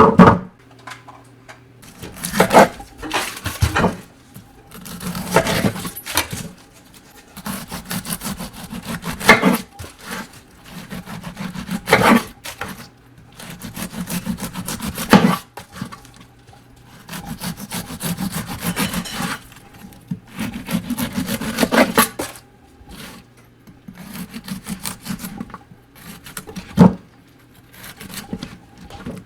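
Serrated bread knife sawing back and forth through bread, in about ten bursts of quick strokes a few seconds apart.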